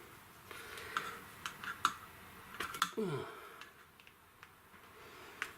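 Scattered light clicks and ticks of a hand coax stripping tool being worked on 10-gauge wire to strip a short length of insulation. There is a short falling hum from a person about halfway through.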